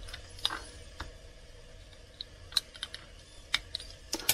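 Light, scattered clicks and scratches of a craft knife's blade tip nicking and gouging the planks of a 00 gauge model plank wagon, with a quick cluster of louder clicks near the end.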